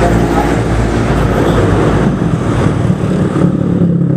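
Yamaha Sniper 135 motorcycle's single-cylinder four-stroke engine running steadily through a cored-out ('kalkal') exhaust pipe.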